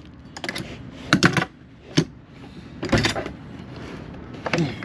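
Tools being handled and rummaged through in a toolbox: a series of sharp clicks and knocks, a few close together around a second in and again around three seconds in, with a single sharp one in between.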